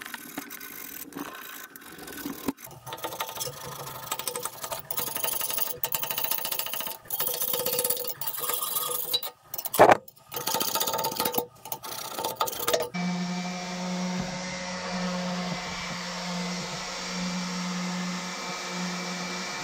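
Power tools abrading the steel of a narrowboat engine bed to clean off weld spatter and rust, a rough scraping noise that is cut off abruptly several times. For the last six or seven seconds one tool's motor runs steadily at an even pitch.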